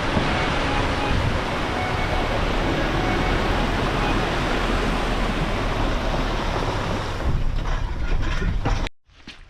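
Vehicle crossing a creek: a steady rush of water mixed with engine and tyre rumble, cutting off abruptly near the end.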